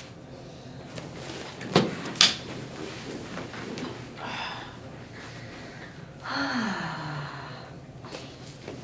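A patient turning over onto her back on a padded chiropractic treatment table: two sharp knocks about two seconds in, a short rustle, then a longer rustle with a falling tone near the end.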